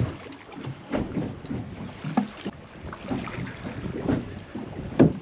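Wind buffeting the microphone and choppy water slapping against a small boat's hull, with irregular low thumps, the sharpest at the start and near the end.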